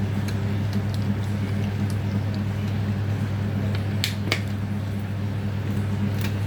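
Washing machine motor running with a steady low hum while mixing the soap; two sharp clicks about four seconds in.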